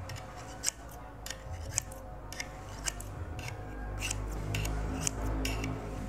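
Scissors being sharpened by snipping their blades against the edge of a metal tube: short, sharp metallic snicks of blade scraping on metal, about two a second.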